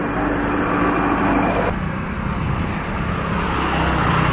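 Road traffic: motor vehicle engines running with road noise, the sound changing abruptly a little under two seconds in.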